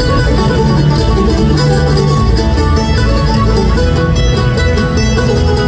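A bluegrass band playing live through an arena sound system: banjo, acoustic guitar, upright bass and fiddle, recorded from the audience.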